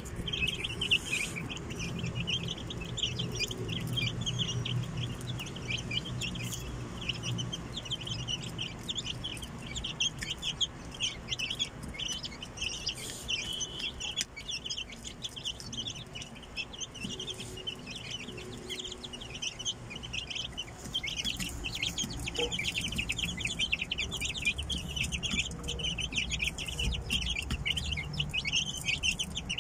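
Aseel chicks peeping continuously in a dense, high-pitched chorus as they feed, with low clucking from the Aseel hen beneath it.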